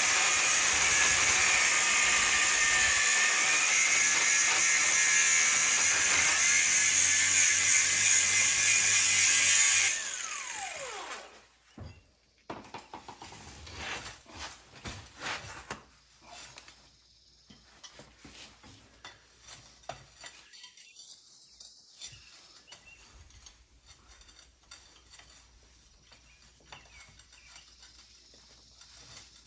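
A motor-driven tool runs loudly for about ten seconds, then cuts off and winds down with a falling whine. It is followed by scattered light clicks and clinks of metal parts being handled.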